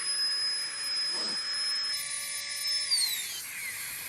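FLEXTAILGEAR Tiny Pump X, a small battery air pump, running with a steady high whine as it finishes inflating a sleeping pad, then switched off about three seconds in, its whine falling away as the motor spins down.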